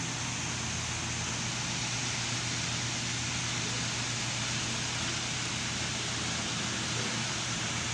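Land Rover LR4 engine idling steadily, a constant low hum with an even hiss over it.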